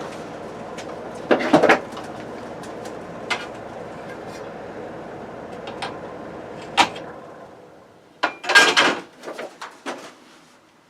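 Electric fan running with a steady whir, then winding down and dying away about seven seconds in after being switched off. Knocks and clatters of handling sound throughout, the loudest cluster shortly after the fan stops.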